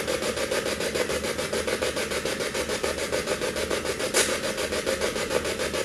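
A steady rasping hiss with a rapid, fine pulsing to it, and one sharp click about four seconds in.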